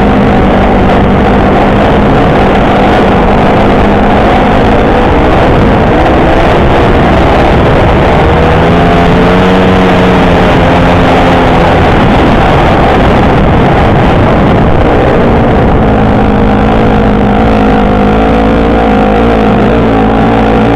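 Honda CRF150 dirt bike's single-cylinder four-stroke engine running hard under racing throttle, heard loud from on board. Its pitch rises and falls as the rider works the throttle and gears.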